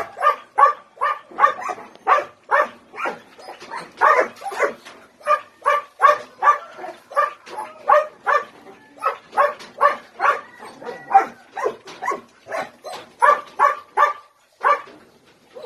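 A dog barking in short, quick yips, about two to three a second, with a brief pause near the end.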